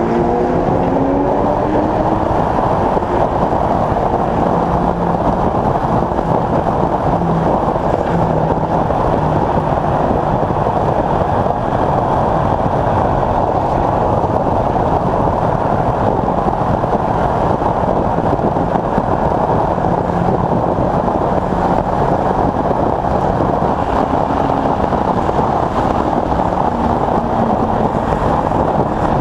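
Late Model Stock race car heard from its in-car camera: the engine runs under a heavy, steady rush of wind and road noise. Its pitch glides briefly near the start and then stays even.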